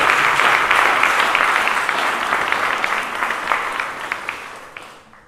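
Audience applauding, many hands clapping, the applause dying away near the end.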